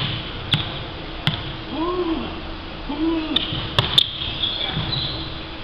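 Indoor volleyball play on a hardwood court: several sharp ball impacts, with a quick pair of hits about four seconds in. Two short rising-and-falling calls come from the players about two and three seconds in, and high shoe squeaks on the floor sound near the end.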